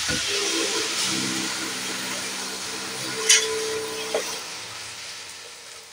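Wet water spinach and a little water sizzling and steaming in a hot kadai, the hiss fading away gradually; a short click about three seconds in.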